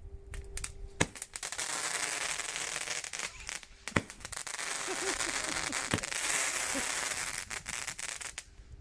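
Roman candle firework going off: a steady hiss and crackle broken by sharp pops, about one, four and six seconds in, that dies away near the end.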